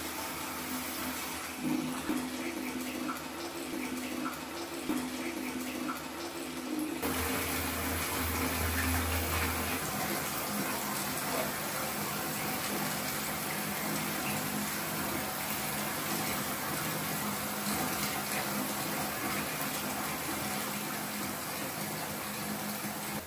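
Water running steadily from a tap. The sound changes abruptly about seven seconds in.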